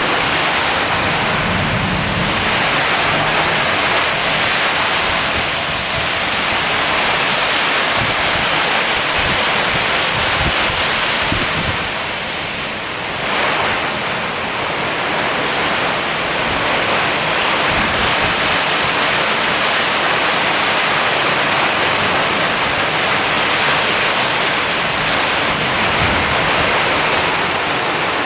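Steady rain falling, an even hiss of many drops with a brief slight lull around the middle.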